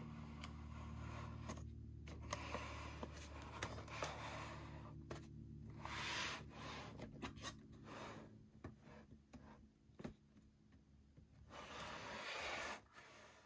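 Toy packaging being handled and opened: uneven bursts of rubbing and scraping with a few sharp clicks, over a low hum that fades out about halfway through.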